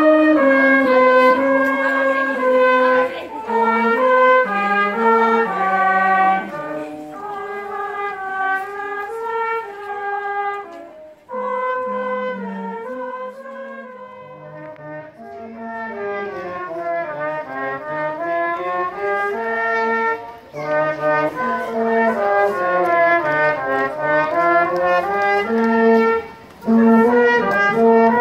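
Trumpet and another brass horn playing a Christmas carol in harmony, in held notes and phrases, with a short break about eleven seconds in.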